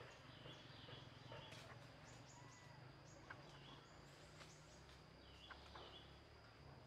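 Faint outdoor ambience: a steady high insect drone with short chirping bird calls repeating every second or so, over a low hum.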